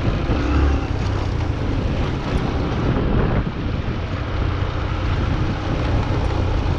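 Wind rushing over the microphone on top of a steady rumble of vehicle and road noise while moving through traffic.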